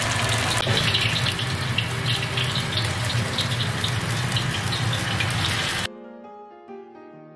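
A shrimp and Chinese chive fritter sizzling and crackling as it fries in a wok of hot oil. The sizzle cuts off abruptly about six seconds in, leaving soft piano music.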